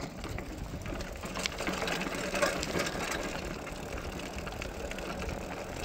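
Mountain bike rolling down a road: a steady rolling noise from the tyres with rapid faint clicking from the bike's drivetrain.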